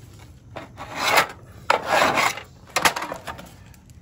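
A flat screwdriver tip scraped hard along galvanized sheet metal, guided by a level, in a few rasping strokes. It is scoring cross-break lines into a duct plenum panel to stiffen it against expansion banging.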